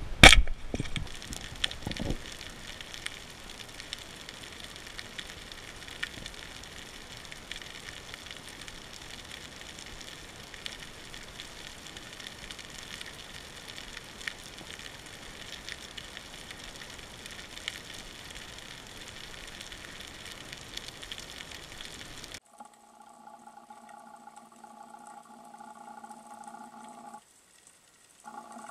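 Speargun shot underwater: one sharp, loud crack right at the start, followed by a few weaker knocks. After it comes the steady crackle and hiss of the sea with scattered clicks. About 22 seconds in this cuts off abruptly and a steady sound of several held pitches takes over, breaking off briefly near the end.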